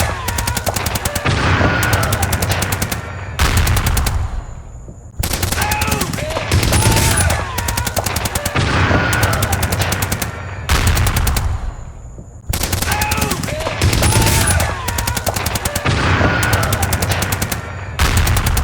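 Rapid automatic gunfire in long bursts, with people screaming underneath. The volley drops away briefly between bursts, and the mix repeats about every seven seconds.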